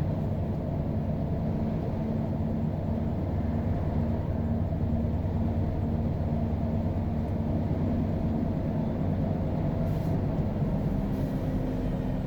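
Scania R520 Next Gen's 16-litre V8 diesel running steadily under a heavy load, a deep even drone that holds its pitch, with two faint ticks near the end.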